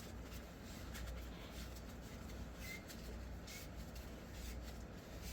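Faint scrubbing and small handling sounds of cleaning carbon out of an SKS rifle's gas tube, with a few soft scrapes.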